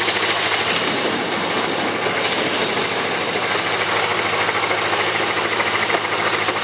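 Narrow-gauge diesel locomotive's engine running steadily while the locomotive travels along the track, heard from on board.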